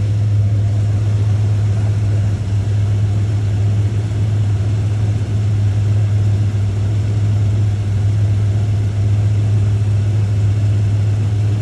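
1977 Chevrolet Caprice Classic idling with a steady low drone.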